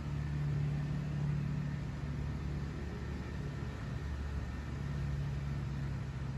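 A steady low mechanical hum that swells near the start and again towards the end.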